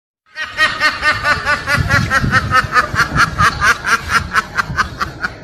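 Laugh sound effect: a rapid, high-pitched run of ha-ha pulses, about five a second, starting abruptly about a third of a second in and going on without a break.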